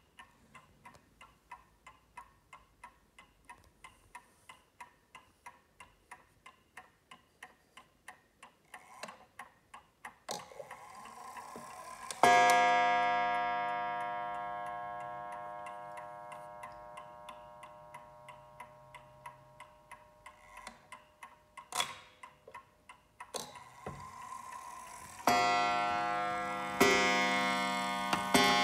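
Enfield mantel clock ticking steadily. About twelve seconds in, its hammer strikes the coiled wire gong once, a rich ring that fades slowly over several seconds. Near the end it starts striking again, blows about a second and a half apart.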